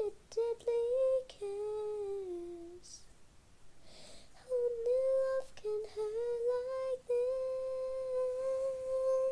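A person humming a tune: a few short notes, a slow falling note, then a pause with breaths. More notes follow near the middle, ending on one long held note.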